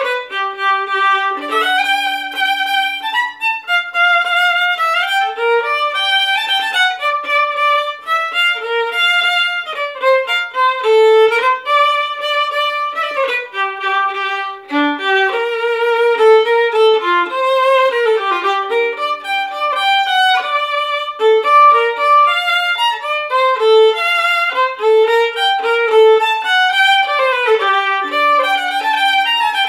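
Solo violin, a French-made instrument, playing a lively old Scots fiddle tune: quick bowed runs of notes that change several times a second, with now and then two strings sounding together.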